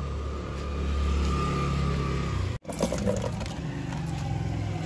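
Low, steady hum of a motor vehicle's engine running, swelling about a second in. It drops out briefly just past halfway, then goes on with a few light clicks and taps.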